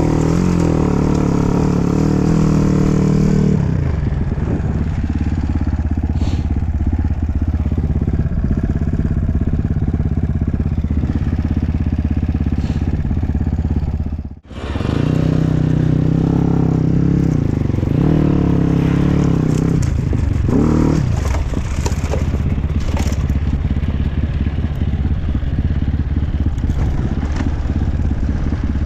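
Dirt bike engine running and revving over rough off-road ground, its pitch rising and falling with the throttle, with clatter and scraping from the bike over the terrain. The sound cuts out sharply for a moment about halfway through.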